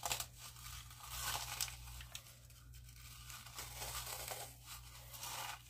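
Vanilla wafer cookies crushed and rubbed into crumbs between the hands: a faint, dry crinkling rustle that comes in uneven bouts.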